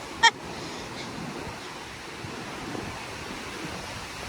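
Ocean surf washing in against the rocks, a steady rushing of waves. One short, loud honking call comes right at the start.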